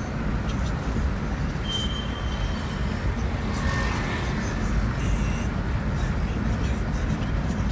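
Steady low rumble of a car's engine and tyres on the road, heard from inside the moving car's cabin. Two faint, brief high tones come through, about two seconds in and about four seconds in.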